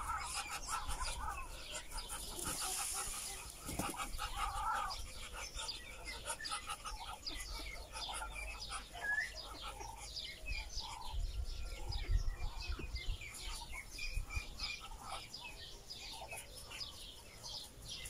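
Ducks and ducklings calling: many quick, short, high calls, a few lower calls, and wings flapping.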